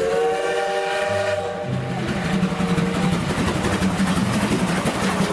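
Steam locomotive running, its whistle blowing a chord of several steady tones for about the first three seconds, over the continuous noise of the engine.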